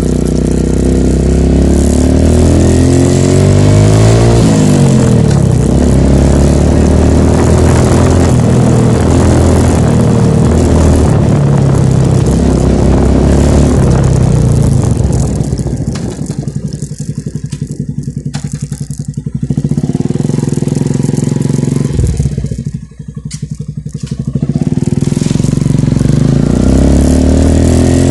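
Yamaha YTX125 motorcycle's single-cylinder engine run through an Akrapovic muffler with the silencer insert removed, loud and held at high revs with rises and falls in pitch. Twice, around the middle and about three quarters of the way in, it drops back to a quick low pulsing idle before being revved up again.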